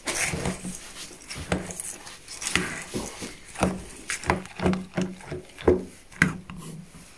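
A spoon stirring and scraping through a dehydrated trail meal and water in a metal camping pot, mixing it before it is left to soak. The scrapes and knocks against the pot come irregularly, about one or two a second.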